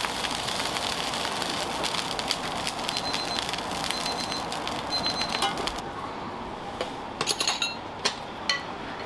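Gyoza frying in a pan: a steady sizzling hiss with crackle that cuts off sharply about six seconds in, followed by a few metallic clinks.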